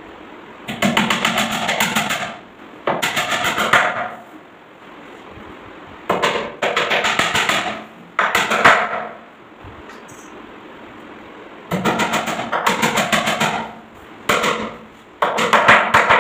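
Claw hammer driving nails into plywood panels of a box frame, in bursts of quick, closely spaced blows about a second long, with short pauses between bursts.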